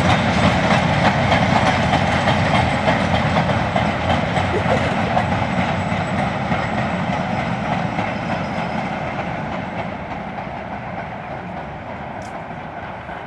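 A steam-hauled goods train of steel mineral wagons rolling past, the wheels clattering over the rail joints. The sound fades steadily as the train draws away.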